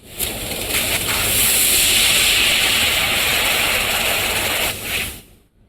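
Handheld fiber laser cutting head cutting steel: a loud, steady hiss of the gas jet through the cutting nozzle, cutting off sharply near the end.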